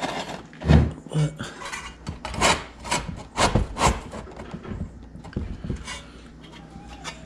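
Metal bumper bracket scraping and knocking against a bumper as it is test-fitted: irregular rubbing strokes with a dull thump about a second in, dying down near the end.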